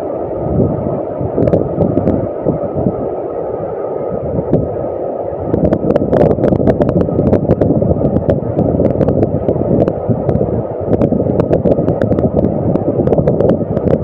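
Steady rushing roar of a large waterfall close by, mixed with wind buffeting the microphone. It grows fuller about five and a half seconds in, with scattered light clicks and rustles over it.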